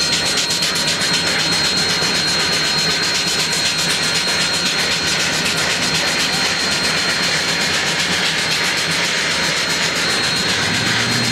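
Standing steam locomotive Union Pacific 844, a 4-8-4 Northern, giving off a steady hiss with a thin high whine through it. A low hum joins near the end.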